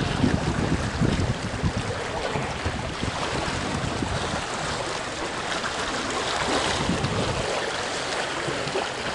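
Small sea waves washing and splashing among the rocks, a steady rushing of water, with wind buffeting the microphone in the first few seconds.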